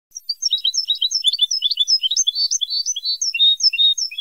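Recorded European goldfinch song, of the kind put on old Moroccan training tapes for tutoring captive goldfinches: a rapid, varied run of short chirps and slurred notes that starts abruptly just after the start, over a faint hiss.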